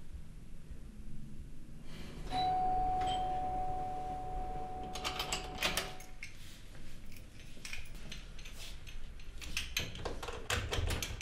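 Doorbell chime ringing about two seconds in, a ringing tone that fades out over three to four seconds. After it come scattered clicks and knocks, with a cluster near the end as the door latch is worked.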